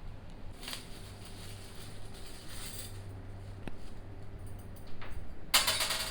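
Packaging being handled during an unboxing: soft rustles, then a louder crinkling near the end, over a faint steady low hum.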